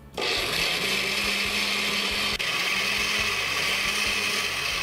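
Countertop blender grinding raw parboiled rice with water, starting abruptly a moment in and running steadily with a low hum under the grinding whirr.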